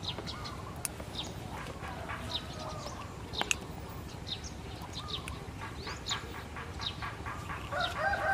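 Small birds chirping here and there in short, high notes, with a single sharp click about three and a half seconds in. A chicken clucks near the end.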